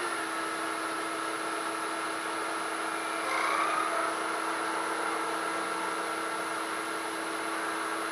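Wood lathe running steadily with a steady hum, while a burning wire is held against the spinning wood, friction-burning a line into it; a brief gliding whine and a slight rise in level come about three seconds in.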